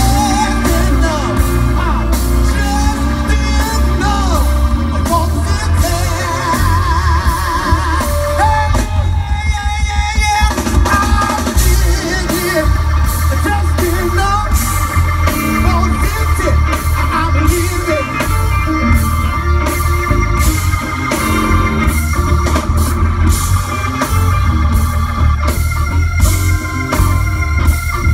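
Live funk-soul band music led by a Hammond organ, over electric bass and a drum kit, with a steady groove.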